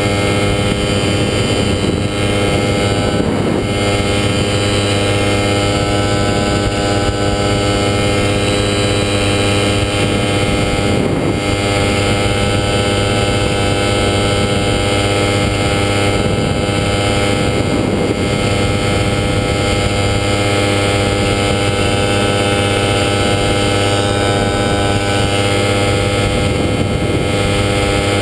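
Falcon XP single-seat ultralight's engine and propeller running steadily in flight, an unchanging drone with wind noise over it.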